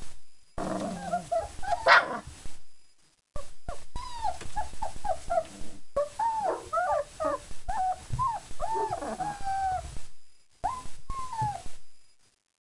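A litter of four-week-old German Shepherd puppies whining in many short, high cries, one after another. A single louder, sharp sound stands out about two seconds in.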